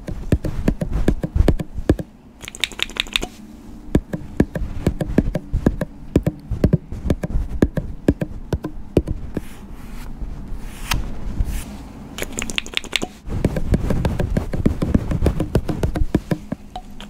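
Close-up hand sounds from gloved hands handling makeup tools: a dense, uneven run of taps and clicks with rubbing, busiest near the end.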